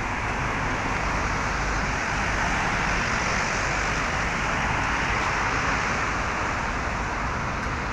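Steady road traffic noise: an even rumble of vehicle engines with no distinct events.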